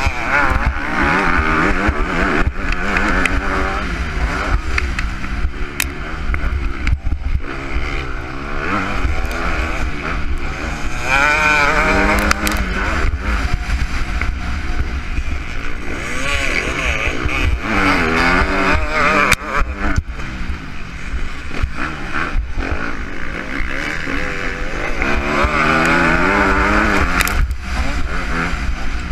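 Motocross dirt bike engine revving, its pitch climbing and dropping again and again as the bike accelerates and backs off through the turns, over a steady wind rumble on the helmet camera's microphone.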